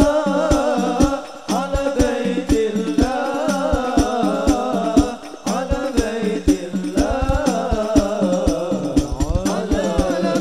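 Men singing Arabic sholawat devotional verses into microphones, a lead voice with others joining, over a steady beat of banjari frame drums (rebana). The singing breaks briefly twice, about a second and a half in and again around five seconds.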